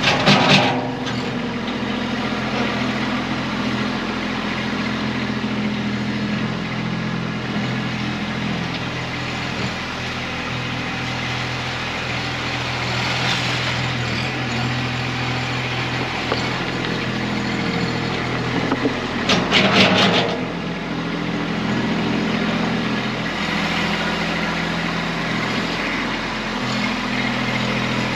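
Kubota B2301 compact tractor's three-cylinder diesel running steadily under backhoe work. Short bursts of clanking knocks come right at the start and again, several in quick succession, about twenty seconds in.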